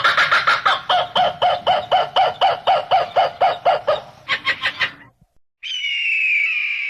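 Animal-like calls repeated about four times a second, quickening briefly after about four seconds; after a short silence, one longer call that falls slightly in pitch.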